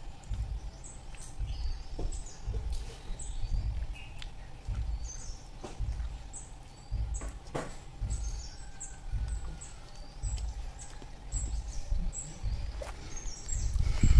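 A small animal chirping: short, high calls repeated one or two times a second, over irregular low rumbling from wind on the microphone. A sharp knock comes at the very end.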